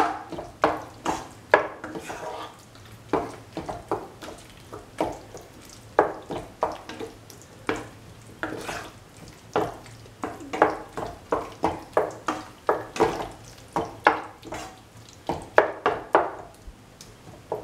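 A cooking utensil scraping and knocking against a pan in irregular strokes as bottle gourd and tomato stew is sautéed and crushed, with a light sizzle underneath.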